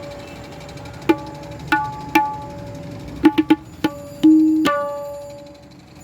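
Handmade tabla struck with single, widely spaced strokes, about ten in all, each ringing on at a clear pitch, played to show off the drum's tuning and resonance.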